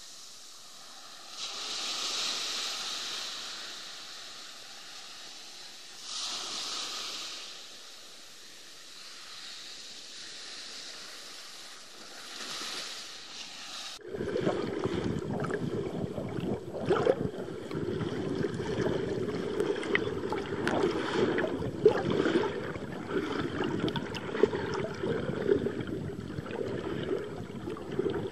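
Ocean surf washing in, three swells rising and falling in the first half. About halfway it cuts suddenly to louder water sloshing and gurgling close to the microphone, with many small clicks and pops.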